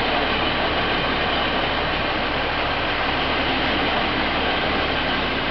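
Taiwan Railways passenger coaches rolling slowly past close by: a steady, even running noise with a faint low hum underneath.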